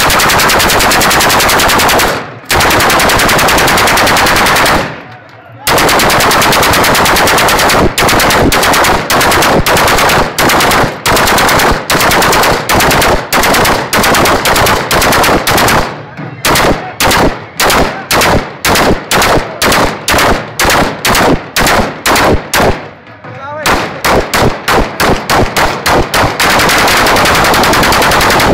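Kalashnikov-type rifles fired into the air on full automatic, very loud and close. Several long unbroken bursts give way, about eight seconds in, to quick separate shots two or three a second, with a further long burst near the end.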